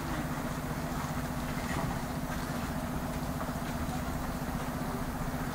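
An engine idling steadily, an even low hum with a fine regular pulse.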